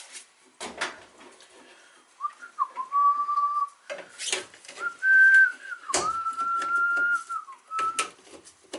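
A person whistling a few long, steady notes, with scattered sharp clicks and knocks of tool handling.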